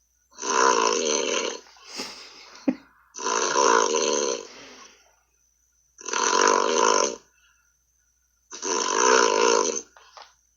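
A man snoring heavily and in a regular rhythm, four long rattling snores about every two and a half to three seconds, coming through a Skype call's audio. A single sharp click falls between the first and second snores.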